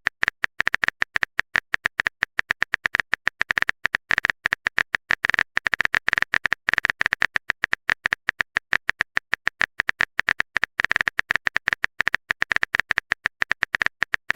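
Rapid, irregular clicking of a phone's on-screen keyboard typing sound, several taps a second with a few short pauses.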